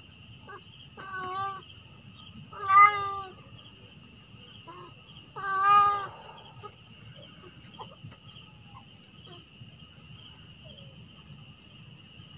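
A domestic cat shut in a wire cage meowing three times within the first few seconds, the second and third calls loudest. This is the meowing the cat does once it is locked up. Crickets chirr steadily behind.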